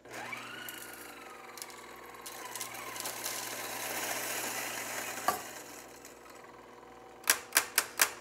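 New electric coffee grinder starting up and grinding beans for a Chemex on setting 8: a whine rises and then settles over the grinding, which swells and then winds down after about six seconds. Near the end come four sharp knocks, the loudest sounds.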